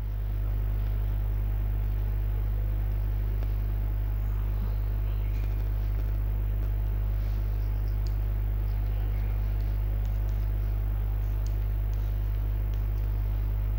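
Steady low electrical hum, with faint scattered taps and scratches of chalk on a blackboard as dots and letters are drawn.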